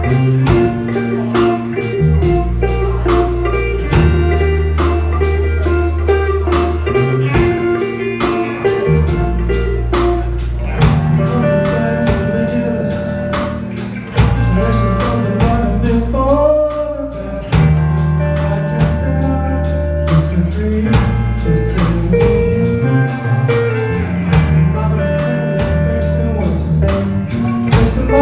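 Live band playing a slow blues: lead guitar lines with bent notes over bass and a drum kit keeping a steady beat.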